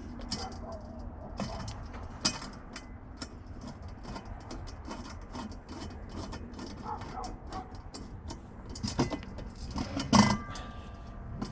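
Scattered metallic clicks and clinks of a flathead screwdriver tightening the screws that hold the legs of a Weber Smokey Joe kettle grill, with a louder ringing clink near the end.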